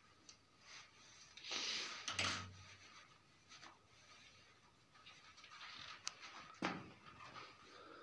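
Faint rustling noises, the loudest about two seconds in, and two sharp clicks later on.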